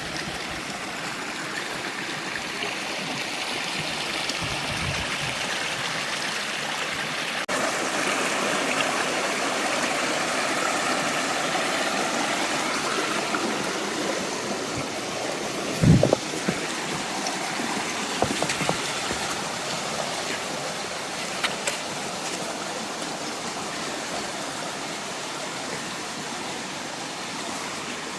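Creek water rushing steadily, with one sharp thump about halfway through.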